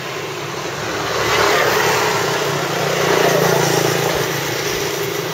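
Motor scooters passing close by on a bridge roadway. The traffic noise swells about a second in and again around three seconds, with a low engine hum under the second swell.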